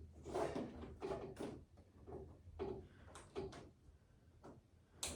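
Irregular short scrapes and light knocks, about half a dozen, of display panel pieces being handled and pressed into place.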